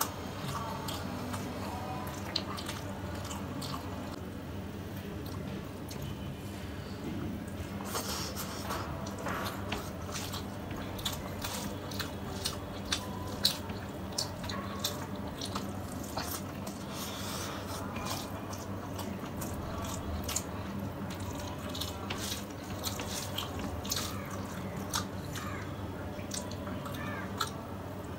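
Close-miked wet, sticky eating sounds: a bare hand squishing and mixing rice with fish curry, with many short wet clicks and smacks of chewing throughout.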